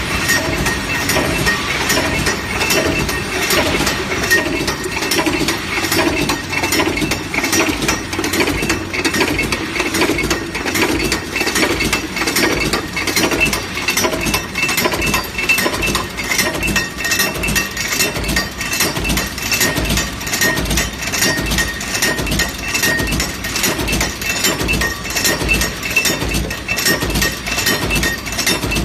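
Forging header (heading machine) running, a fast, steady stream of metallic clinks and clatter from its repeated strokes and moving parts.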